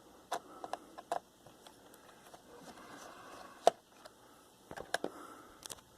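Scattered small plastic clicks and snaps from a Gateway MT6460 laptop's cover panel as it is pried loose, its clips letting go one by one. The sharpest snap comes a little past halfway.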